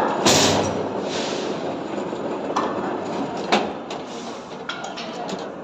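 Electric rebar bending machine at work on TMT steel bars: a steady mechanical noise, a loud scraping burst near the start, and two sharp metal knocks around the middle.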